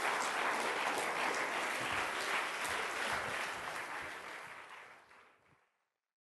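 Theatre audience applauding, steady clapping that fades away near the end.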